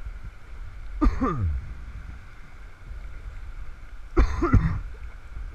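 A person's short throat-clearing or cough-like vocal sounds, twice, about three seconds apart, each falling sharply in pitch, over faint steady background noise.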